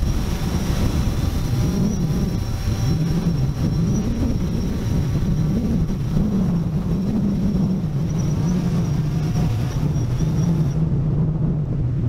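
DJI Phantom 4 Pro quadcopter's propellers humming close by, the pitch wavering up and down as it holds position in strong wind, with heavy wind rumble on the microphone.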